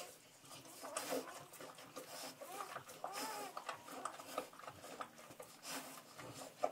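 Newborn Saint Bernard puppies giving short, arching cries a few times, with wet licking and rustling as the mother cleans them.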